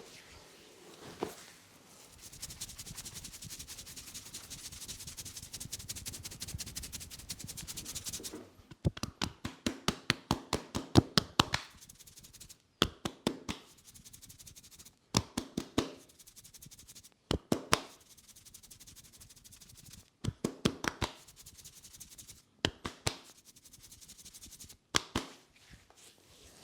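Hands-on massage: several seconds of rapid, even rubbing on skin or hair, then short bursts of quick, sharp taps or strikes repeated every two to three seconds.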